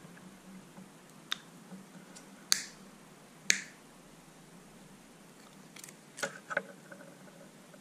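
Side cutters snipping into a 12-gauge shotgun shell's plastic hull, giving sharp, separate snaps: three spaced about a second apart, then a quick pair with a few small clicks near the end.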